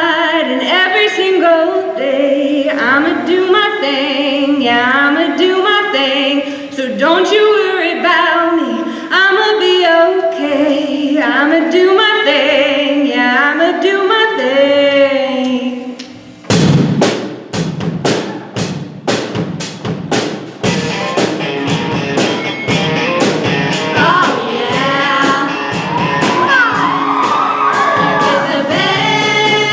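Performance music: a sung vocal melody with no bass or beat underneath, then a little past halfway it cuts abruptly to a fast dance track with sharp, evenly spaced drum hits.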